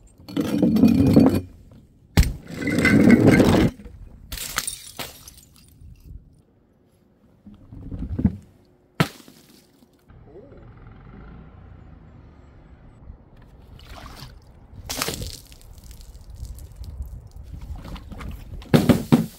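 Glass bottles, jars and liquid-filled balloons dropped and smashing one after another. About seven separate crashes come a few seconds apart, the two loudest in the first four seconds, with breaking glass and splashing liquid.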